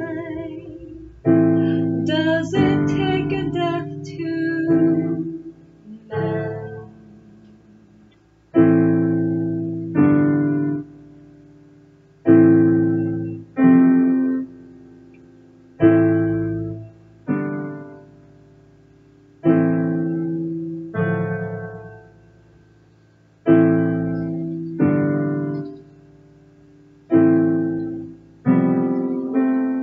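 Digital piano playing an instrumental passage: block chords struck about every one and a half to two seconds, often in pairs, each left to ring and fade, with a quicker run of notes a few seconds in.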